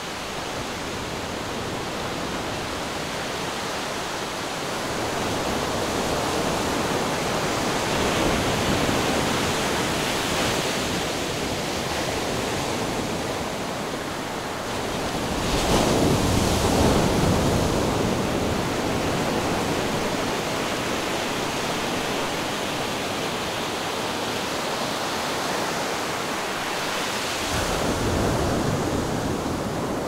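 Black Sea surf: waves breaking and washing up the beach in a continuous hiss, swelling louder with each break, the biggest about halfway through and another near the end.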